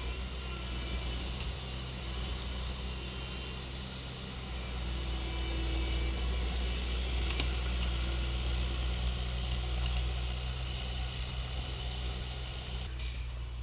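Diesel engine of a Bobcat T870 compact track loader running steadily, a little louder in the middle of the stretch.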